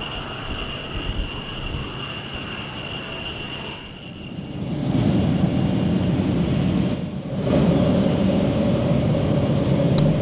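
Boeing KC-135 Stratotanker's turbofan engines: a steady jet whine with high tones as it lands, then a louder low rumble as it taxis close by. The sound drops out briefly about four and seven seconds in.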